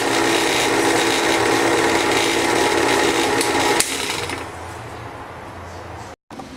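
An electric motor running steadily with a whirring tone, cutting off sharply about four seconds in and leaving a quieter low hum.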